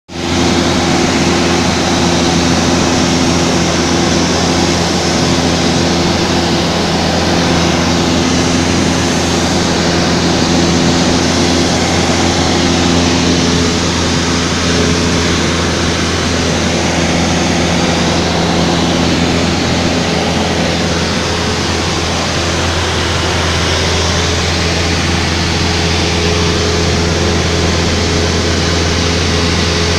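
Light aircraft's engine and propeller droning steadily, heard inside the cabin: a low hum with a few steady tones over a broad rush of noise.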